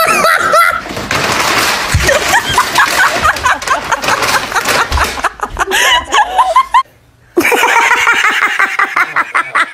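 People laughing in high-pitched giggles and chuckles, broken by a short silence about seven seconds in.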